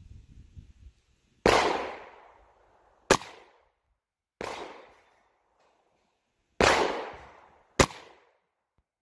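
Gunfire from a Rossi RS-22M .22 WMR (.22 Magnum) rifle: a string of sharp bangs, five in all, spread over several seconds. Some trail off with a long echo, others are short and sharp.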